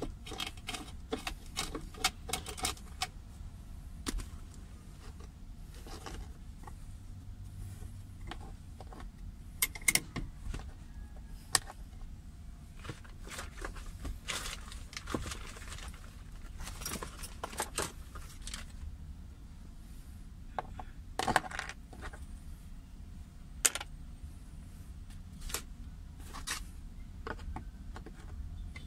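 Irregular sharp clicks and metallic clinks of a screwdriver and loose parts against the plastic center console of a Mitsubishi Lancer, as the console cover over the handbrake lever is being taken off. A few louder clicks fall near the middle.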